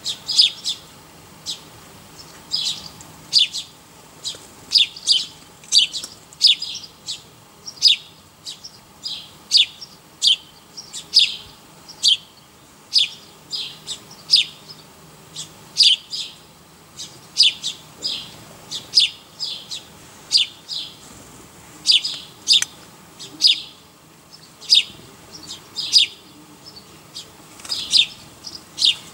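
A small bird chirping over and over, short high chirps about one and a half to two a second, irregularly spaced.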